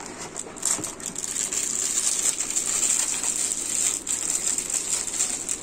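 Crinkling and rustling of a clear plastic packet of hair-clipper attachment combs being handled, with a few light clicks of plastic parts from the clipper's box tray.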